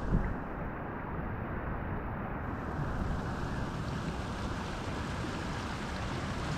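Ocean waves washing steadily onto the shore, with wind buffeting the microphone. The high end drops out for the first two seconds or so.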